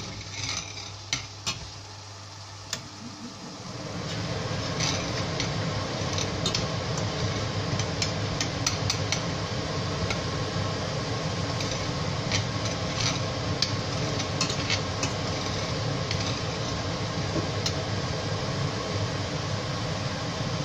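A spatula stirring curry in a stainless steel pot, scraping and tapping against the metal again and again. About three and a half seconds in, a steady mechanical hum and rush rises underneath and keeps on.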